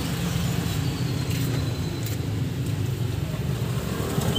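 Steady low drone of a motor vehicle engine running in the background.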